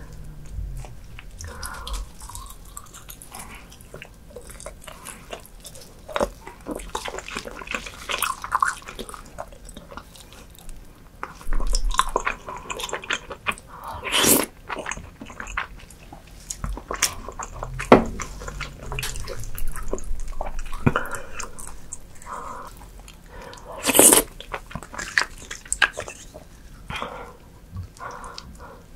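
Close-miked eating sounds: wet chewing and biting of chewy, gelatinous spicy pork tail and beef bone marrow, made of many small irregular smacks and clicks, with a few louder sharp mouth sounds about 14, 18 and 24 seconds in.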